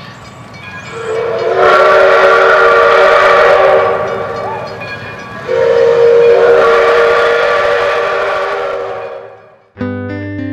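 Steam locomotive whistle blown in two long blasts of three to four seconds each, a chord of several notes, the second fading out, over hissing steam. Plucked guitar music starts right at the end.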